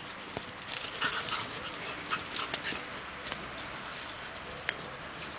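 Borzoi puppies play-fighting in loose dirt: scuffling and short, sharp sounds, with brief puppy whines.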